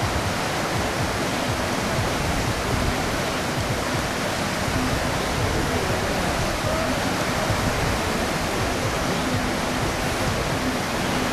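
Whitewater rapids rushing steadily over rocks on a slalom course.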